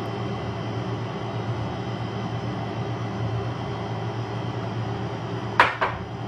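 Steady hum of a running fan, with two sharp clicks close together near the end.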